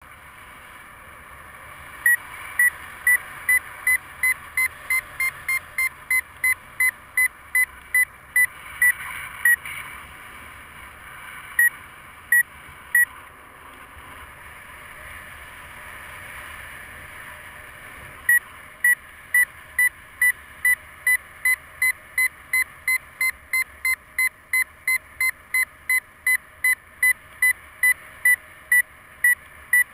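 A paragliding variometer beeping, short high beeps that signal the glider is climbing in lift. The beeps come about twice a second, stop for about five seconds around the middle, then return and quicken to about three a second near the end. A steady rush of air runs underneath.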